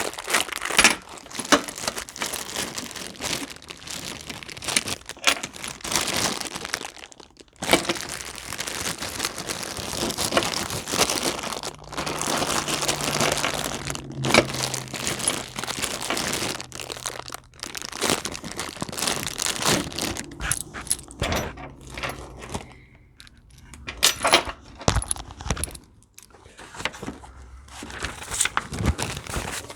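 Plastic hardware packaging crinkling, crackling and tearing as it is torn open by hand, with small metal bolts and nuts jingling.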